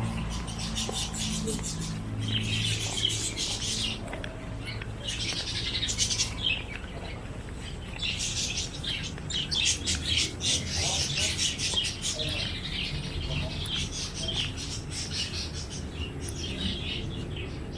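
Many small birds chirping and twittering in dense, overlapping bursts.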